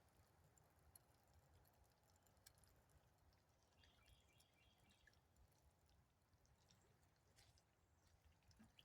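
Near silence: faint outdoor background with a few faint ticks, and a faint repeated high chirp about four seconds in.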